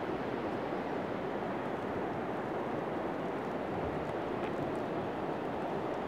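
Steady rushing of a rocky mountain stream with small rapids, heard from high above the gorge.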